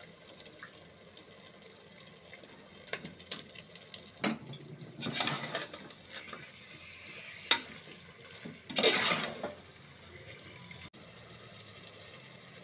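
Metal spoon stirring chicken pieces through wet masala in a pressure cooker: a few sharp taps of the spoon against the pot, and two longer wet scraping swishes, about halfway through and again a few seconds later.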